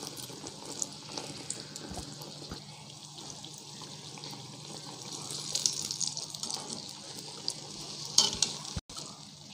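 Battered brinjal slice (beguni) deep-frying in hot oil in a kadai, a steady crackling sizzle. A little after eight seconds in, a metal spatula briefly scrapes against the pan.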